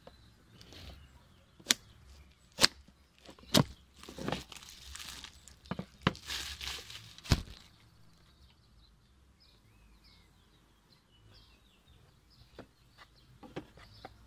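Plastic shrink-wrap being slit and torn off a cardboard board-game box: several sharp clicks and knocks of blade and box, with crinkling and tearing of the film in the middle. It goes quieter after that, with a few soft taps near the end as the box lid comes off.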